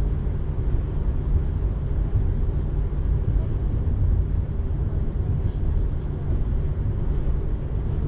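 Steady low rumble of a suburban electric train running at speed, heard from inside the passenger carriage.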